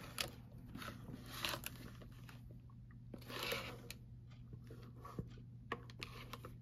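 Faint rustling and crinkling from a pebbled leather tote bag being handled, with a few light clicks and two slightly louder swells of rustle, over a low steady hum.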